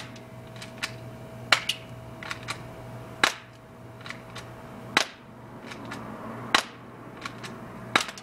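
A 6mm Glock 18 BB pistol firing single shots, about six sharp pops roughly every second and a half, with fainter clicks between them.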